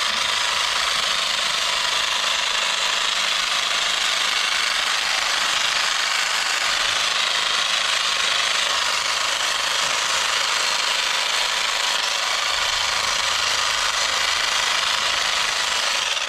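Cordless battery hedge trimmer running continuously, its reciprocating blades buzzing as it cuts shrubs, then stopping abruptly at the end.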